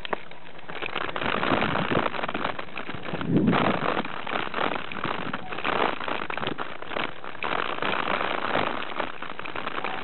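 Mountain bike riding fast down a dirt and rock singletrack: a dense crackling rattle of tyres over the trail and the bike and camera shaking, with a heavier thump about three and a half seconds in.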